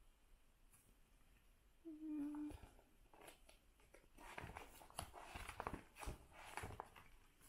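Faint rustling and clicking of photocards and plastic binder sleeves being handled, starting about three seconds in, preceded by a person's short hum about two seconds in.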